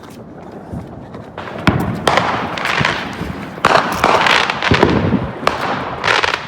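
Neighborhood fireworks going off: after a quieter start with faint distant pops, a run of sharp bangs begins about a second and a half in, with crackling between them.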